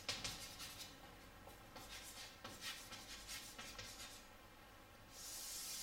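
Chalk writing on a chalkboard: a run of short scratchy strokes as letters are formed, then a longer, steadier stroke near the end.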